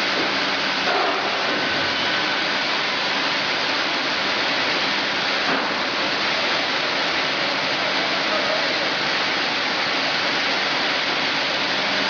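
Fimaksan horizontal band sawmill running: a steady, even rushing noise of the band blade and machinery with a faint steady hum underneath.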